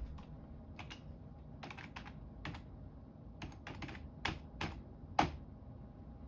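Keys being typed on a computer keyboard: about a dozen irregular keystrokes, the loudest near the end.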